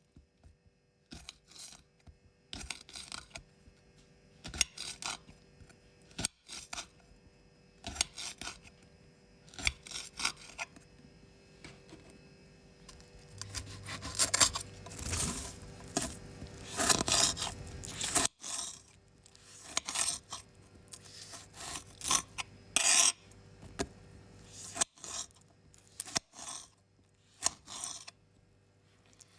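Knife cutting vegetables: short separate slicing strokes, with a denser run of rapid cuts and scraping about halfway through.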